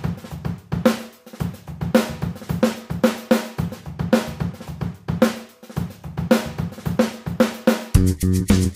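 Background music: a steady drum-kit beat, with sustained bass and guitar notes coming in near the end.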